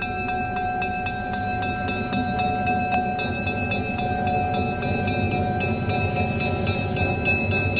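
Union Pacific EMD E-unit diesel passenger locomotives running slowly past with a steady engine rumble, and a high steady ringing held over it throughout.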